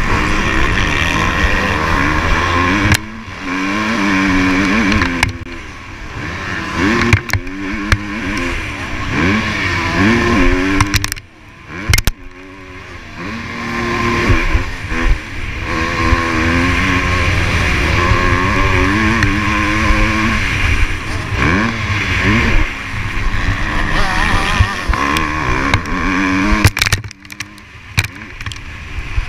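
Motocross bike engine racing on a dirt track, revving up and falling back over and over as the rider works the throttle and gears, with wind noise and sharp knocks from the rough ground. The engine drops away briefly about eleven seconds in and again near the end.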